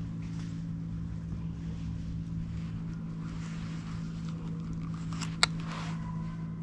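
A vehicle engine idling with a steady low hum. About five and a half seconds in there is a single sharp click, followed by a brief hiss.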